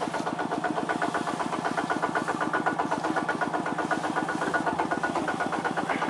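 Small engine running steadily at a constant speed with a rapid, even beat.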